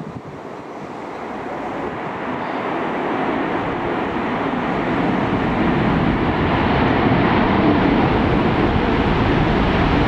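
Airliner engines roaring, growing steadily louder over the first six seconds as the aircraft comes closer, then holding loud.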